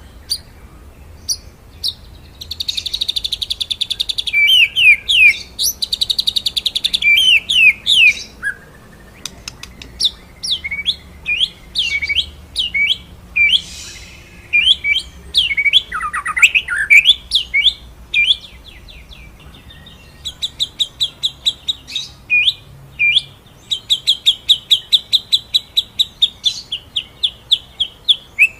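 White-rumped shama (murai batu) singing loudly: fast rattling trill rolls a few seconds in, then a string of sharp whistled notes that sweep downward, and near the end a long run of rapidly repeated notes, about five a second.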